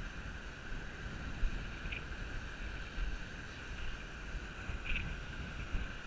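Wind buffeting the microphone in uneven low rumbles over a steady high hiss, with a couple of faint short chirps.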